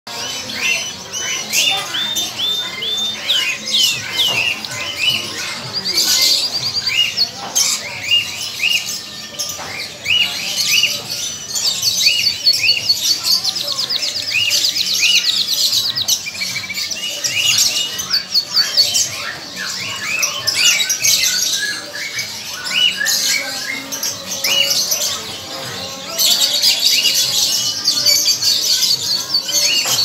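Young domestic canary singing: a long, varied song of quick chirps and whistled notes, broken twice by fast rolling trills, the second near the end.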